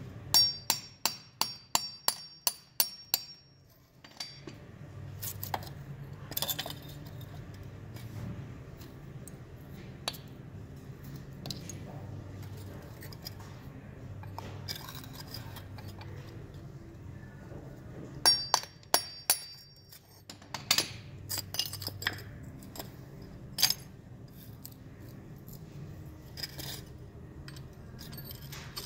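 Claw hammer striking a steel chisel to break white investment mold away from a cast aluminum piece: a quick run of about ten ringing metal strikes at the start, a second run about two-thirds through, and scattered single strikes after it. Between the strikes the chisel scrapes and crumbles the investment, over a steady low hum.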